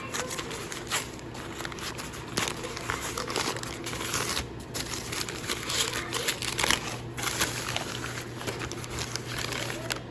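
Packing material crinkling and rustling in the hands as a mail-order orchid is unwrapped, with irregular small crackles throughout.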